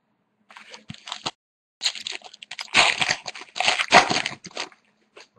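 A trading-card pack's foil wrapper crinkling and tearing as it is opened by hand. Faint rustles first, then a louder stretch of dense crackling from about two seconds in.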